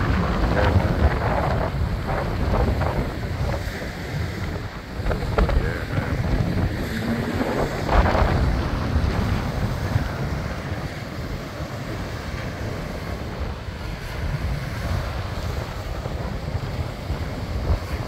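Small waves breaking and washing up a sandy beach, mixed with wind buffeting the microphone in a steady low rumble; the surf swells briefly about halfway through.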